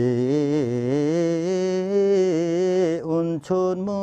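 Limbu hakpare samlo: a single voice singing a long, slowly wavering phrase in Limbu, unaccompanied. The line breaks off about three seconds in, and the next phrase begins.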